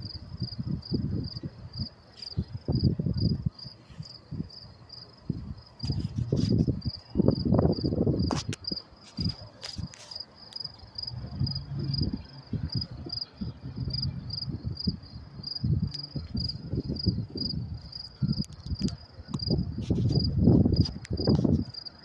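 Crickets chirping steadily in a high, even rhythm of about two chirps a second, over irregular loud low rumbles.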